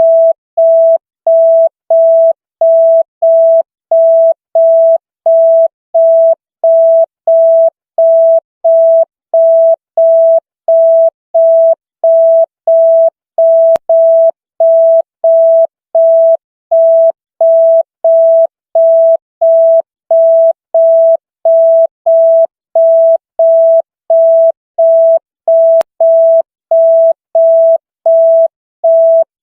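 The '100 signal' police beep: a single mid-pitched electronic tone pulsing evenly on and off, a little under two beeps a second, like a telephone busy tone.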